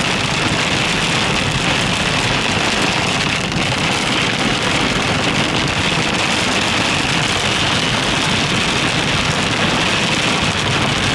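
Heavy rain mixed with small hail falling steadily on a car's roof and windscreen, heard from inside the moving car over the hiss of tyres on the wet, slushy road.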